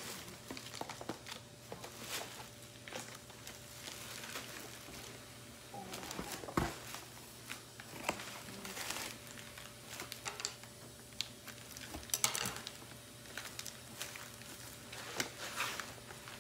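Plastic air-column cushion packaging crinkling and rustling as it is handled, with scattered clicks and a sharper knock about six and a half seconds in.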